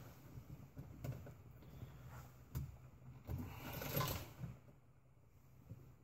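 Faint clicks and plastic scraping as a rocker switch is worked into the plastic switch panel of a UTV dash, loudest about four seconds in.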